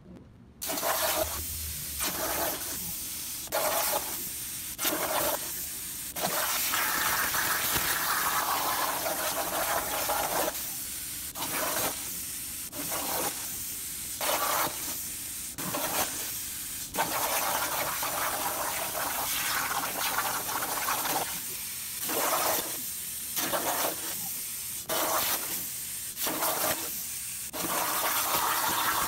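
CNC plasma cutter torch cutting steel plate over a water table: a loud, rushing hiss of the arc and cutting air. In three stretches it dips for a moment about once every second.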